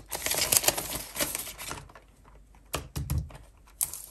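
Crinkling and clicking of a clear plastic binder pouch and polymer banknotes being handled, in two spells with a quieter gap around two seconds in and a soft knock near three seconds.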